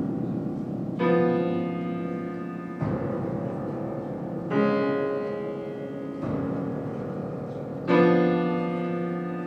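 Solo piano playing slow, bell-imitating chords. Five chords are struck about every second and a half to two seconds, and each is left to ring and fade before the next; the first and last are the loudest.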